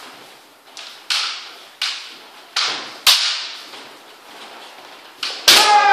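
Bamboo kendo shinai clacking and striking in sparring, about six sharp cracks spread through the first five seconds. Near the end comes the loudest strike, followed at once by a player's loud shout.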